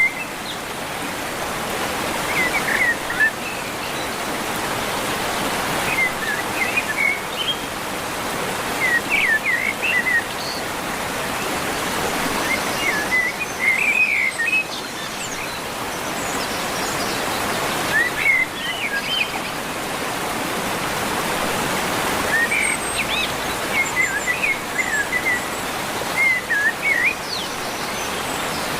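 Bird chirping in short clusters of quick high notes every few seconds over a steady rushing noise like running water.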